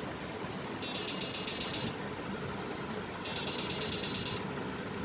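Digital electric shock-fishing inverter whining in pulses, each about a second long and repeating roughly every two and a half seconds, over a steady hiss.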